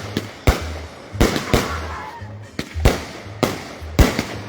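Consumer aerial fireworks going off: about six loud, sharp bangs at irregular intervals, each trailing off in a fading tail. Music with a steady bass line plays underneath.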